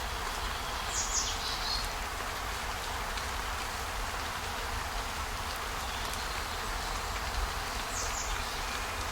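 Steady, even hissing noise with a low rumble underneath, from a relaxation ambience track. Two brief higher-pitched sounds stand out, one about a second in and one near the end.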